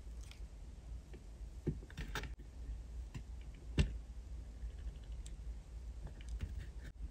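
Tiny knife clicking and tapping on a small plastic cutting board as it cuts small pieces of sweets. A few scattered sharp clicks, the loudest nearly four seconds in, over a faint low rumble.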